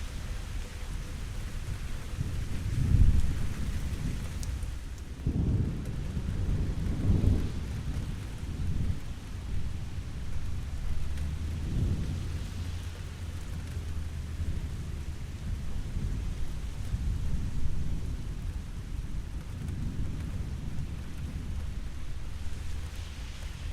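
Steady rain with repeated rolls of distant thunder, deep rumbles that swell and fade. The loudest rolls come about three seconds in and again between about five and eight seconds in.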